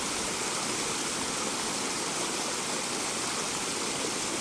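Steady rush of flowing water, an even hiss spread from low to high pitches with no breaks.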